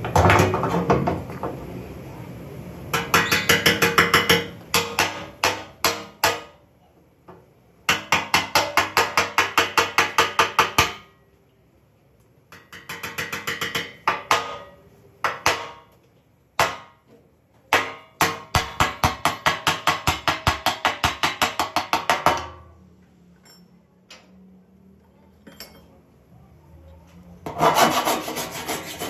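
Hand tool worked in quick repeated strokes on a car body panel, about seven strokes a second, in several bursts of one to four seconds with short pauses between.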